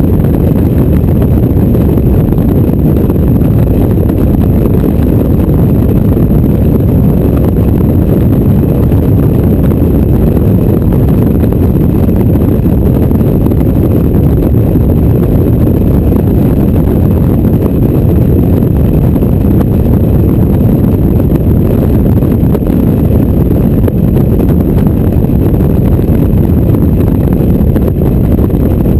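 Mazda MX-5 roadster driven at speed with the top down: steady, loud wind rush buffeting the microphone in the open cockpit, mixed with the car's engine and road noise.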